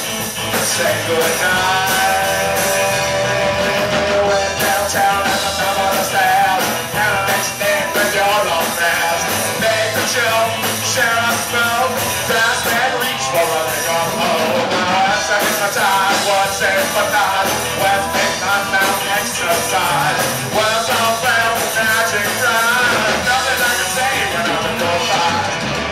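Live rock band playing, with drums, electric guitars and saxophone, the melody carried by shifting mid-range lines.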